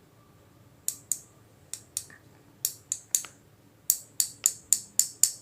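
Hardened homemade herbal sugar-syrup tablets dropped one by one onto a hard surface, each landing with a sharp click. There are about a dozen clicks, sparse at first and coming quicker in the second half. The hard click is the sign that the tablets have set solid.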